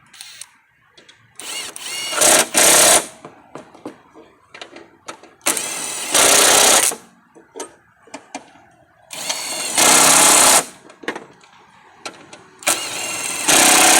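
Impact wrench hammering on a mower deck spindle bolt in four bursts of about a second each, with short pauses between them.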